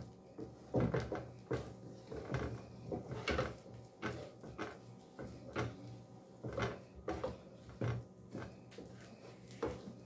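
Wooden spoon knocking and scraping in a pot as stiff cornmeal is turned and mixed: irregular dull knocks, roughly one a second.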